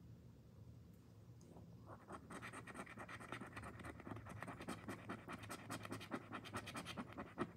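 A coin scraping the silver coating off an instant lottery scratch-off ticket in rapid back-and-forth strokes, starting about two seconds in.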